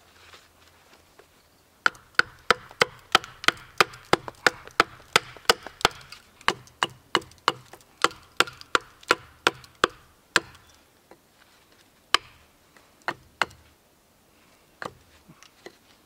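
Hatchet knocking into a log to start splitting it: a quick, even run of sharp knocks, about three a second, then a few slower, scattered knocks near the end.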